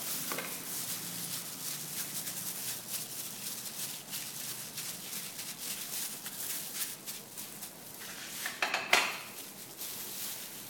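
Kitchen handling sounds as plastic-gloved hands pour dressing over a jellyfish salad and toss it in a plastic bowl: a steady crackle of small clicks and rustles with light clinks of bowls, and one louder clatter a little before nine seconds in.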